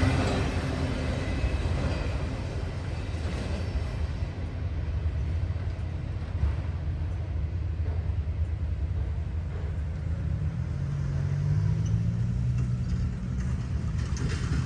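The tail end of a freight train of autorack cars passing and drawing away. The wheel-on-rail noise fades within the first two seconds, leaving a low steady rumble as the train recedes.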